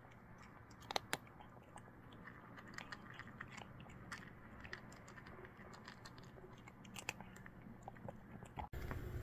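A cat crunching dry kibble from a bowl: irregular crisp crunches and clicks of chewing, a few louder bites among them.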